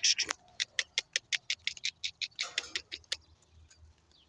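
A fast run of short, sharp clicks, about six a second, that thins out and stops about three seconds in.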